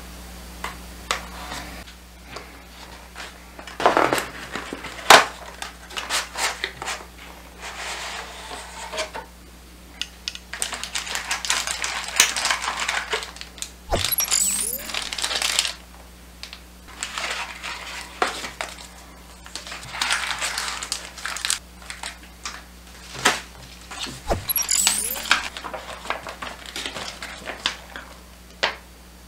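Hands unboxing a boxed toy: a hobby knife cutting along a cardboard box, cardboard and a packing tray being handled with sharp taps and clicks, plastic wrapping crinkling, and a paper manual rustling as it is unfolded. Two sharp knocks stand out, about a third of the way in and again near the end.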